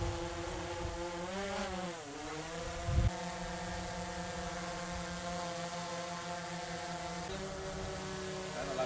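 DJI Mavic 2 Pro drone hovering overhead, its propellers giving a steady multi-tone buzz. The pitch sags and climbs back about two seconds in and shifts slightly near the end, with a short low thump about three seconds in.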